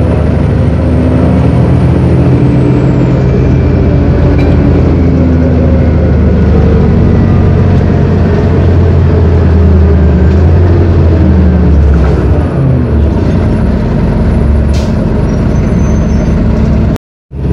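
Detroit Diesel Series 50 four-cylinder diesel in a 1999 New Flyer D40LF bus, heard from inside the moving bus. Its pitch falls in the first few seconds, climbs steadily through the middle as the bus accelerates, then drops again a little after halfway. The sound cuts out for a moment just before the end.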